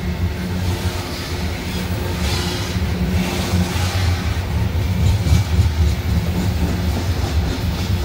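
Open-top hopper cars of a CSX freight train rolling past close by on a bridge: a steady rumble of steel wheels on rail with some clickety-clack.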